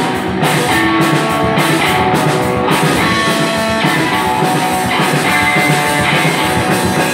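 Live rock band playing an instrumental passage between sung lines: electric guitar over a drum kit.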